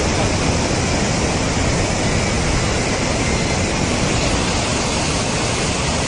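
Steady rushing of a muddy flash flood torrent pouring down a wadi.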